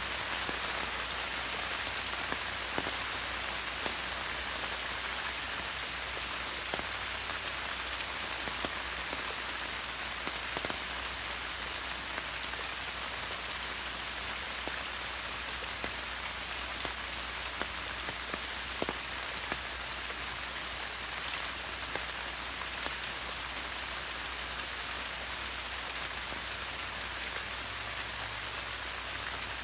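Heavy rain falling steadily, a continuous hiss with scattered sharper drop ticks.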